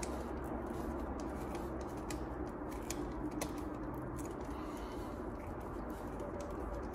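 Small screwdriver turning the terminal screw on the back of a 50-amp range receptacle, tightening down the neutral wire: a run of small, irregular clicks and scrapes of the tip in the screw head.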